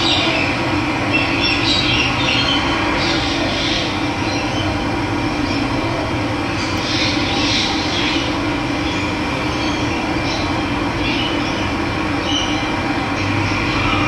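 Running water, a steady rushing flow, with small birds chirping over it now and then.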